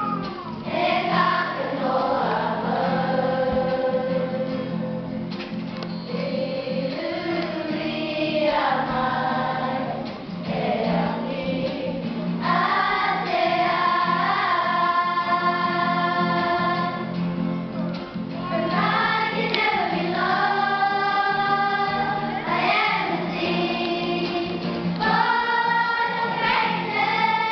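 Children's kapa haka group singing a Māori song together in phrases, accompanied by a strummed guitar.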